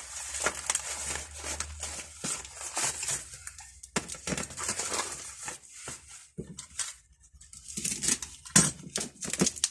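Crinkling and rustling of parcel packaging mixed with irregular clicks and clinks of small metal hand tools being picked up and set down.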